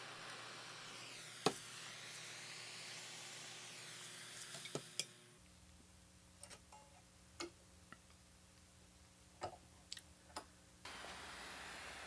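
Scattered sharp clicks and light taps of small hard parts being handled, over a faint steady hiss. The hiss drops out about five seconds in and comes back near the end.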